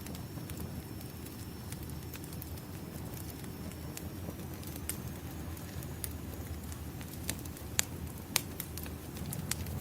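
Burning firewood crackling: a steady low rumble of flames with scattered sharp pops, the two loudest close together near the end.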